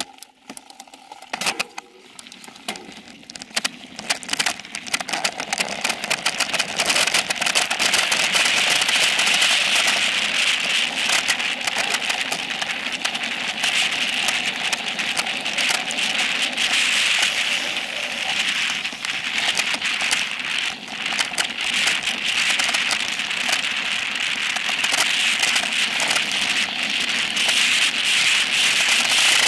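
Mountain bike riding fast down a dirt singletrack, heard from a camera clamped to the seat post: a constant clatter of tyres on dirt and the bike and mount rattling over the bumps, with rushing air. It starts as a few scattered clicks at a slow roll and builds over the first several seconds into a steady, loud rattle as the bike picks up speed.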